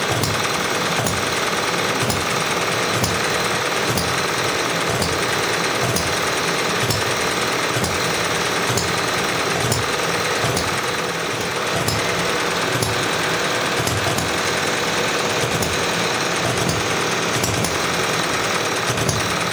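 Model four-stroke hit-and-miss engine with hot-tube ignition running, a rapid chuffing beat with a sharp click about once a second. Under it runs the steady hiss of the brass blowlamp that keeps the ignition tube red-hot.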